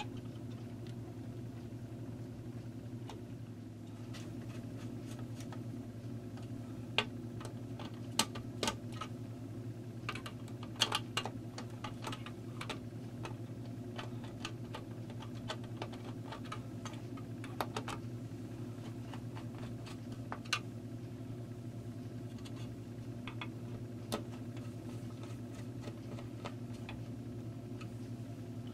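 Scattered light clicks and taps of small metal parts and tools being handled, thickest in the middle stretch, over a steady low hum.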